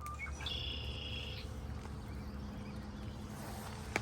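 Quiet outdoor ambience with a low steady rumble, a high insect buzz lasting about a second shortly after the start, and one sharp click near the end.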